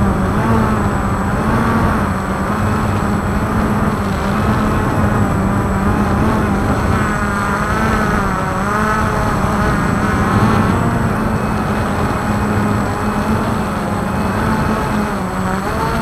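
Multirotor drone's motors and propellers whirring steadily, the pitch wavering up and down as the drone adjusts its flight.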